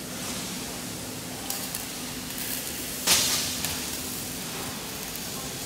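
Steady factory-floor background noise, with a sudden short hiss about three seconds in that fades within half a second, and a few faint clicks.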